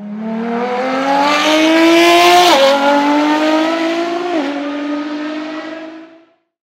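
Sports car engine accelerating hard through the gears, its pitch climbing, then dropping sharply at two upshifts, about two and a half and four and a half seconds in. It fades away near the end.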